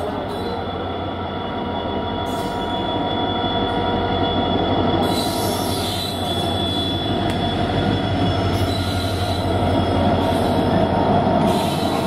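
WDG4 (EMD GT46MAC) diesel locomotive humming as it passes slowly at the head of a freight train of covered wagons, growing steadily louder as it draws level. Over the wheel rumble runs a thin, steady high squeal from the wheels on the rails.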